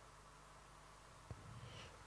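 Near silence: room tone, with one faint click just over a second in.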